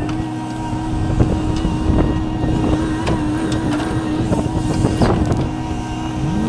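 Diesel engine of a heavy construction machine running steadily, with a few short metallic knocks.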